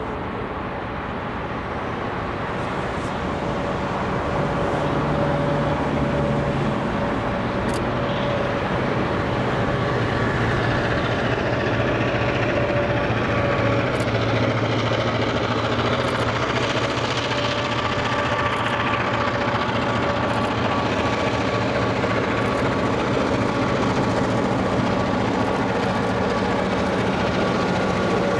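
A consist of diesel locomotives hauling a freight train, led by SSR's RL302 with GM27 behind, running past close by. It is a steady engine drone with a few level hums that grows louder over the first few seconds as the train draws near, then holds steady.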